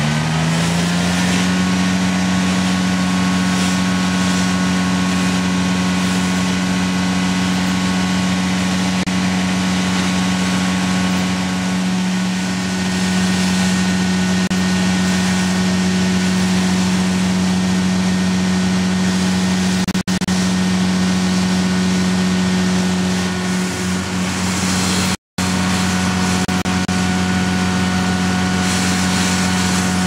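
Elastec All Terrain Vacuum system running at a high, steady speed with a loud, even drone, its pitch settling up to full speed in the first second. The sound cuts out briefly once about 25 seconds in.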